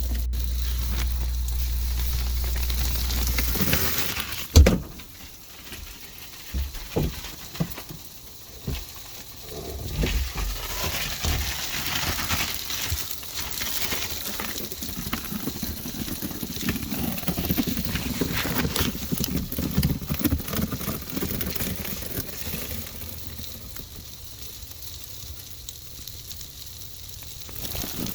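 A steady low hum for the first few seconds, then a sharp knock and a long stretch of irregular crackling and rustling with scattered clicks.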